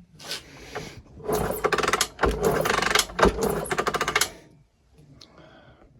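Honda TLR200 single-cylinder four-stroke engine being kicked over, a rapid mechanical clatter lasting about three seconds with a couple of heavier thumps, without starting. A couple of short knocks come first.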